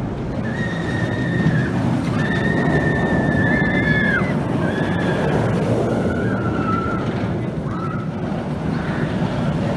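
Steel looping roller coaster train rumbling through its vertical loop, with riders screaming in several long held cries over the rushing noise.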